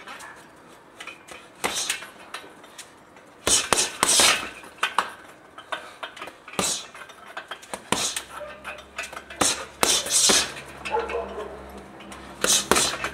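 Boxing-gloved punches landing on a hanging heavy bag in irregular flurries, each hit a sharp smack with the bag's hanging chain clinking.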